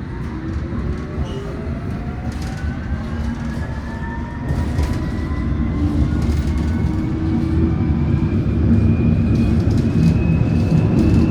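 Metropolitan line S8 stock train accelerating, its traction motors whining in several tones that rise steadily in pitch over rumbling running noise that grows louder about halfway through.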